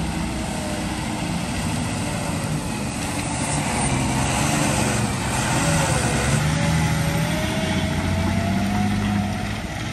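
Diesel engine of a loaded Tata goods truck running as it pulls out and turns slowly past. A whine in the engine note dips about six seconds in, then rises again.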